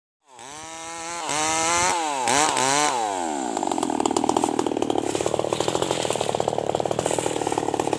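Bosco 5880 two-stroke chainsaw revving, its pitch sliding down and up several times over the first three seconds. It then runs steadily at a lower pitch with a rapid pulse.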